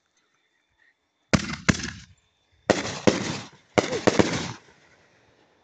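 Aerial fireworks bursting overhead: six loud bangs in three quick pairs, starting about a second in, each trailing off briefly before the next.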